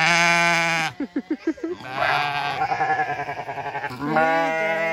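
Sheep bleating: three long, loud bleats, with a few short, quick calls between the first two.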